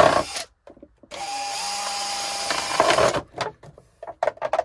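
Cordless drill with a wood bit boring holes through a thin plastic seed tray: a run ends with a crunch about half a second in, then a steady run of about two seconds, then several quick short bursts of the trigger near the end.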